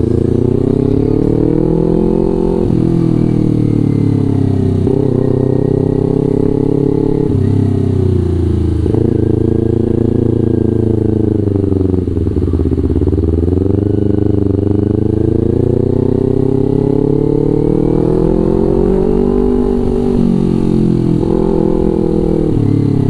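Kawasaki Ninja 250 FI parallel-twin engine breathing through a Villan New ZX1 aftermarket exhaust while the bike is ridden. The revs climb and then drop back sharply several times as it shifts up through the gears. About halfway through the revs fall away as it slows, then it pulls up through the gears again.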